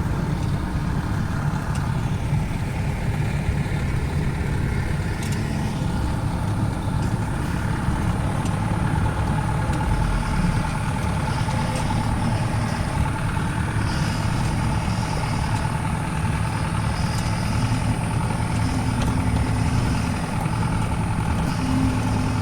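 Off-road vehicle's engine running steadily at low speed, with a faint steady whine above it and a few light knocks.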